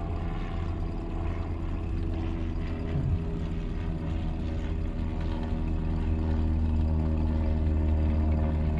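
Outboard motor of an inflatable boat running at a steady speed while the boat is under way, with a low, even drone that grows a little louder about halfway through.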